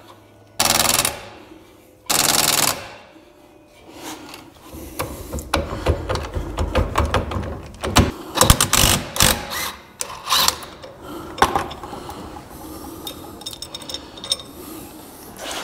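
Cordless impact wrench hammering in two short bursts, drawing a new wheel stud into the brake hub by tightening a nut against a stack of washers. Then come several seconds of irregular metal clicks and rattles as the nut and washers are worked on the stud.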